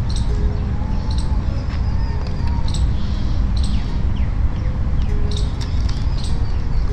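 Birds chirping, short high calls coming irregularly over a steady low rumbling noise.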